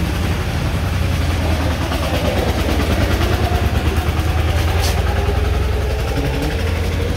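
An engine running steadily, a loud low rumble, with faint background voices.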